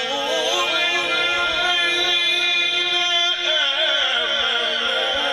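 A man reciting the Quran (tilawat) in a drawn-out melodic style into a microphone, his voice rising and falling in long, wavering ornamented phrases without a break.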